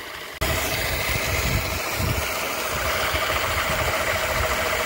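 Electric scooter motor driving a 4-inch water pump directly off solar panels, running steadily with a hum, while water gushes from the outlet pipe. The sound starts suddenly about half a second in.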